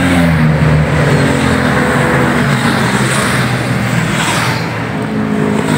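Touring motorcycles passing by on the road in a procession, their engines running steadily, the engine note dipping slightly in pitch in the first couple of seconds.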